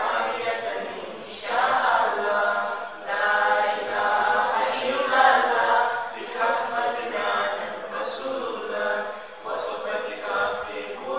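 A group of voices singing without instruments, a chant sung in phrases of a second or two with short breaks between them.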